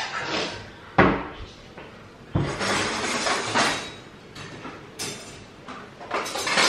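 Dishes and utensils clinking and clattering as a dishwasher is unloaded, with a series of sharp knocks, the loudest two about one and two and a half seconds in.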